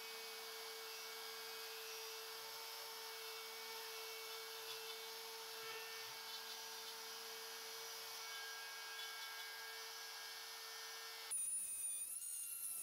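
DeWalt compact palm router spinning at a steady high speed with a constant whine, its bit routing a circular cut through wood as it is guided around a trammel. About 11 seconds in it cuts off abruptly and music with a wavering, whistle-like melody takes over.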